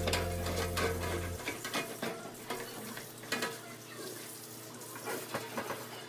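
Kitchen tap running into a stainless steel sink while dishes are hand-washed, with light clinks and knocks of dishware against the sink and rack. Background music runs under it and stops about a second and a half in.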